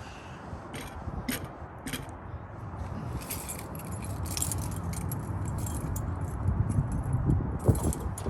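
A bunch of keys jangling and clicking as a key is worked in a newly fitted door lock cylinder. The jingling grows denser about three seconds in.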